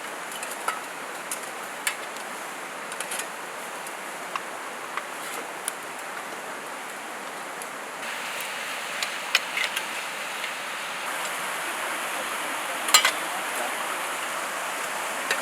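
Steady rain falling, with scattered sharp ticks and knocks of drops and handling close by; it grows louder about 8 seconds in.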